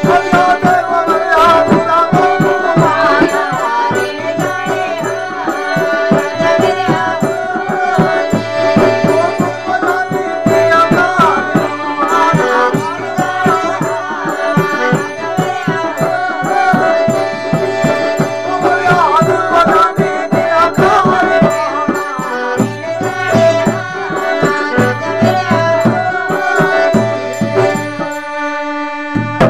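Instrumental passage of Himachali folk music: a harmonium plays the melody over held drone notes, a hand-played barrel drum keeps a steady beat, with small hand cymbals and a plucked lute. The music thins out and breaks off briefly near the end.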